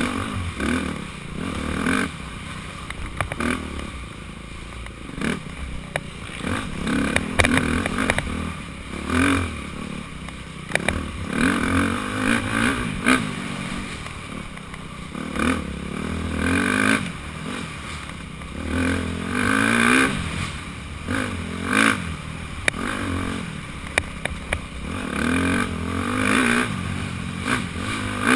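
Dirt bike engine revving up and falling back over and over under hard riding, with scattered clattering knocks from the bike over rough ground.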